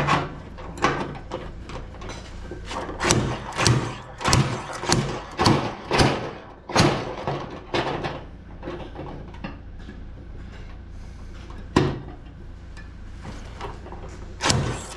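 Slide hammer of a spot-welding dent puller knocking repeatedly, about two sharp metal knocks a second for some eight seconds, then a lull with one more sharp knock near twelve seconds. The hammer is being used to pull welded-on studs off a car body panel.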